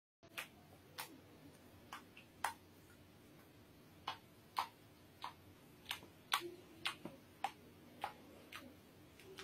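Faint small splashes and drips as a wet kitten paddles its front paws through shallow bathwater: sharp, irregular plinks, coming more often in the second half.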